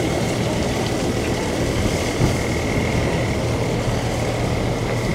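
Marine diesel engine idling steadily: a low hum with a thin, steady high whine above it.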